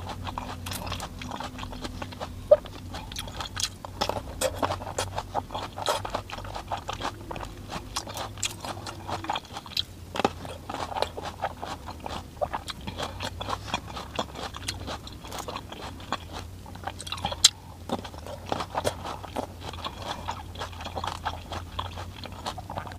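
A person biting and chewing large, crisp red grapes: a dense, irregular run of crisp crunches and wet clicks, over a steady low hum.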